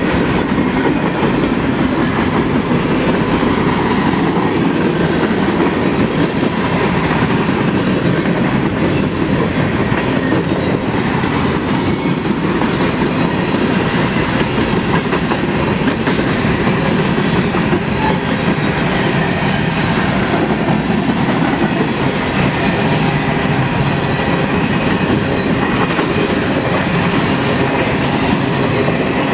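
Freight train of boxcars and covered hopper cars rolling past close by at speed: a loud, steady rumble of steel wheels on the rails.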